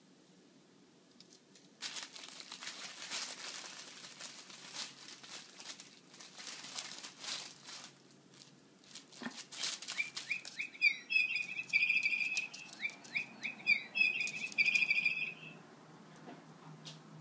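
Fabric cat toy rustling and crinkling as a small dog digs and noses at it, starting about two seconds in. About ten seconds in comes a quick series of high chirping squeaks lasting some five seconds, louder than the rustling.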